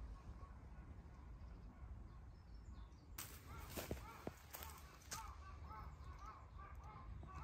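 Faint outdoor ambience with a low wind rumble. About three seconds in come scattered footsteps on dry leaf litter and a bird calling in a run of short repeated notes.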